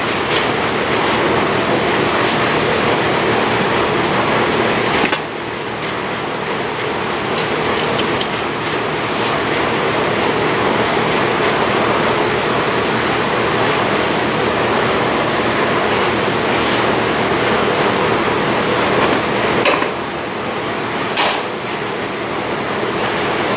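Steady rushing ventilation noise, with a few faint clicks of small hardware being handled. The level dips briefly about five seconds in and again near twenty seconds.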